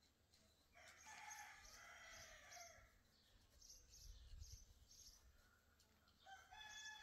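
Rooster crowing faintly, twice: a crow lasting about two seconds starts about a second in, and another begins near the end. Between them a small bird chirps in short, evenly repeated notes.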